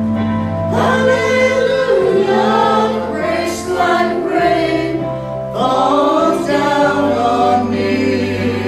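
A small mixed group of women and men singing a worship song together into microphones, over sustained instrumental accompaniment that holds long, steady low notes.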